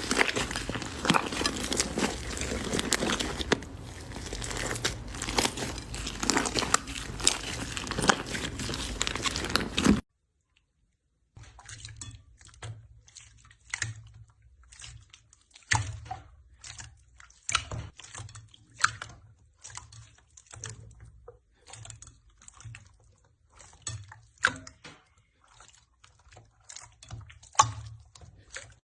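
Slime being handled and squeezed, with dense crackling and crunching. After a short break about ten seconds in, a different slime gives quieter, separate pops and crackles.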